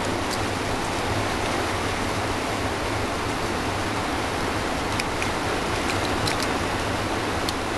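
Steady background hiss with a low hum under it, with a few faint clicks of plastic toy parts being turned and moved, mostly in the second half.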